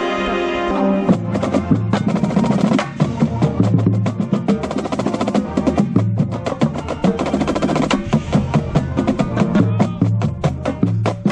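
A high-school marching band's sustained chord breaks off about a second in. The drumline then takes over with a fast passage of crisp snare and tenor drum strikes over pulsing bass drum hits.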